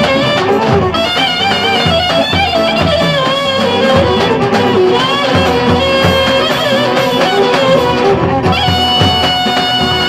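Live Turkish Romani dance music: a clarinet plays a fast, ornamented melody over steady davul drum beats, settling into a long held note near the end.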